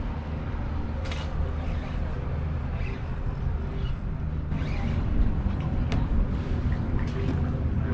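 Steady low rumble of wind and moving water, with a few short sharp clicks about a second in and again near the end.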